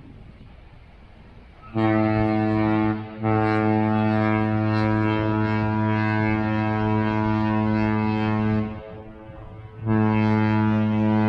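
Holland America cruise ship's horn blowing: a short blast, then a long blast of about five seconds, then another blast starting near the end. A deep, loud horn tone rich in overtones.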